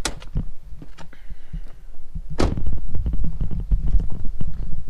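Clattering and knocking of someone reaching into a car's cabin and then walking on a concrete driveway, over a low rumble. One sharp thump about two and a half seconds in stands out.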